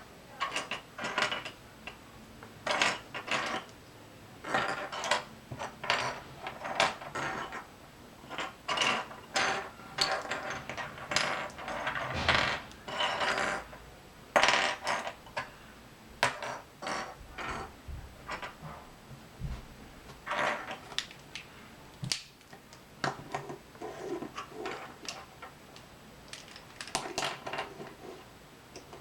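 Plastic Rubik's Cube pieces clicking and clattering as the disassembled cube is fitted back together by hand, in irregular runs of sharp clicks with short pauses.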